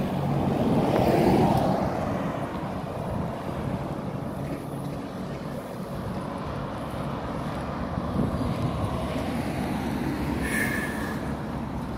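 Roadside traffic: a motorcycle passes close by, loudest a little over a second in, then the sound settles to a steady hum of more distant traffic and wind.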